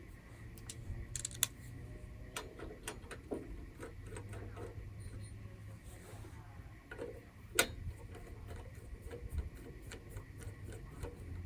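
Light clicks and taps of hand tools and small metal parts as a cover is fitted onto a small engine, with one sharper knock about seven and a half seconds in.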